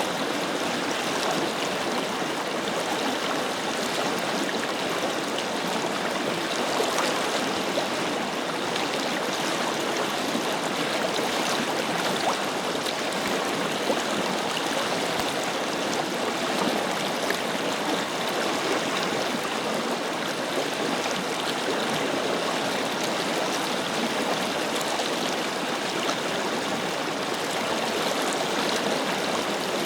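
Forest river flowing steadily over stones, a constant rushing with small splashes and gurgles.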